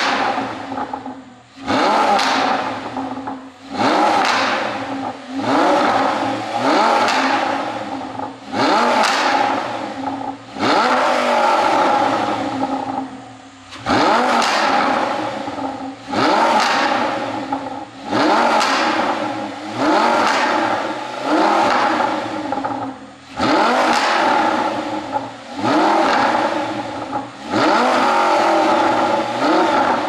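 A 2011 Audi R8's 5.2-litre V10 is blipped repeatedly while standing still, about every two seconds, through an Akrapovic exhaust. Each rev rises sharply and falls back, with the crackle and pops on the overrun that an ECU tune is set up to give.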